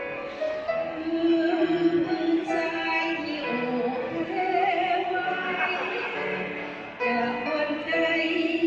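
Music from a Thai song: a held lead melody with a wavering pitch over accompaniment.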